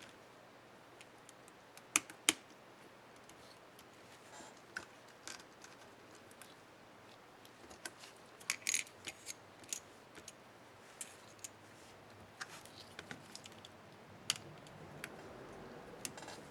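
Small plastic clicks and ticks from a laptop keycap and its scissor-type retainer being handled and snapped into place on a keyboard. There are two sharp clicks about two seconds in, a quick cluster near the middle, and scattered single ticks after.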